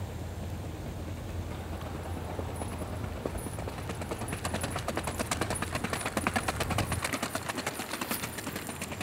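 Racking horse stallion's hooves striking a dry dirt and gravel track at a fast, even four-beat singlefoot (rack). The quick, even hoofbeats grow louder a few seconds in as the horse passes, then fade near the end.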